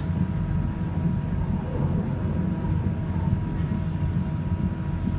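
Steady low background rumble with a faint constant high tone running through it; no distinct events.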